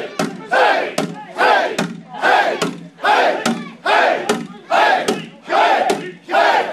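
A large karate class shouting "Hey!" in unison with each punch, in an even rhythm of about one shout every three-quarters of a second. A sharp knock comes just before each shout.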